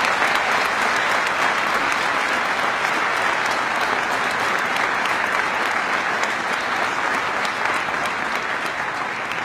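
Large audience applauding, a steady dense clapping that eases off slightly near the end.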